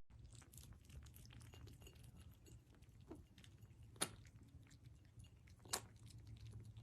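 Near silence: a faint low hum with a few faint clicks, two of them a little plainer, about four seconds in and near the end.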